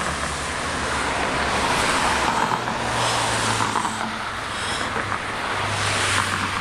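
Road traffic at an intersection: cars driving past with a steady low engine hum and tyre noise that swells as vehicles go by.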